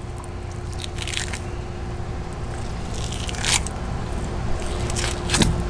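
Dexter fillet knife cutting an Atlantic bonito fillet away from the backbone: a few short scraping, squishing strokes of the blade through flesh and against bone, over a steady low rumble and hum.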